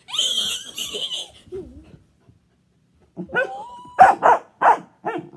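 Dog barking in play: a whine rising into four quick, sharp barks near the end, the loudest sounds here. A shrill squealing burst fills the first second or so.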